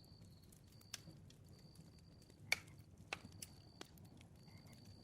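Bonfire crackling faintly, with scattered sharp pops and snaps, the loudest about two and a half seconds in.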